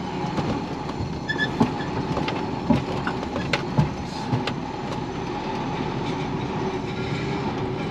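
Lorry cab noise while driving slowly over rail tracks: the diesel engine runs steadily, with a few irregular sharp knocks and rattles as the wheels cross the rails.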